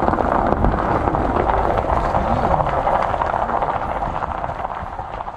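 Steady road and engine noise of a moving vehicle, fading out near the end.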